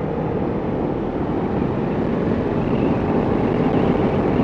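Kawasaki Ninja 300 parallel-twin engine running through its Arrow exhaust while the bike is ridden, with road noise.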